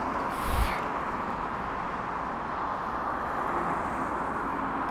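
A car's engine running steadily under load as it strains to pull against a fishing line tied to it. About half a second in there is a brief thump with a hiss.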